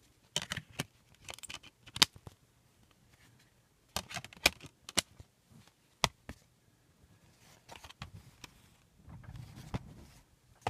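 Plastic clicks, taps and rustling from a Blu-ray digipack's clear disc trays and card packaging being handled: scattered sharp clicks with short crackling bursts, and a softer rustle near the end.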